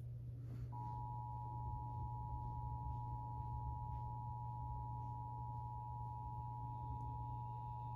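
Emergency Alert System attention signal: a steady two-note tone near 1 kHz, the 853 Hz and 960 Hz pair, starting about a second in and held on. A steady low hum runs underneath.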